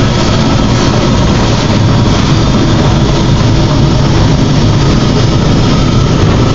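1998 Challenger hopper-fed grinder running loud and steady, its heavy engine drone mixed with a dense rushing noise.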